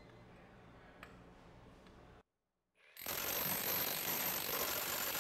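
Milwaukee 2717 SDS Max rotary hammer hammering its bit into a dyno's anvil. The loud, steady hammering starts abruptly about three seconds in, after low room tone.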